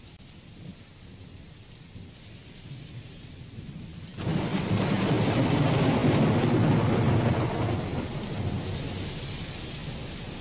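Steady rain with thunder: a long roll of thunder breaks in suddenly about four seconds in, over the rain, and slowly dies away.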